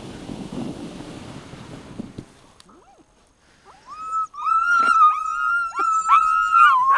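Sled dogs whining and howling in long, high, wavering cries that overlap from about four seconds in, eager to run. Before that, a steady rushing noise fades away about two seconds in.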